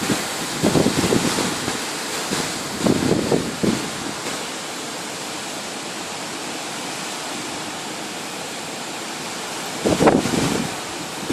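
Storm-force wind rushing in a steady hiss, with gusts that buffet the microphone shortly after the start, about three seconds in, and again near the end.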